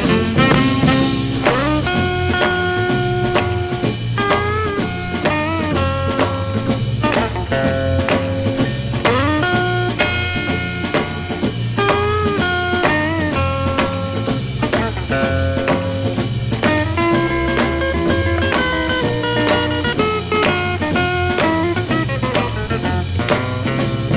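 Instrumental oldies rock and roll music: a drum kit keeps a steady beat under a lead melody with held notes that bend and slide between pitches.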